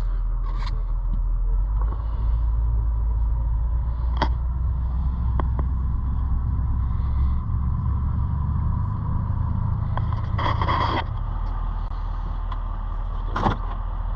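Car running, with a steady low engine and road rumble heard from inside the vehicle. A few sharp clicks and a short rattle about ten seconds in sound over it.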